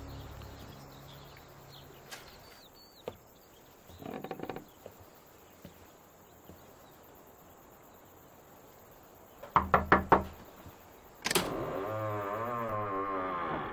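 Four quick knocks on a wooden front door, then the door swinging open with a long, wavering creak.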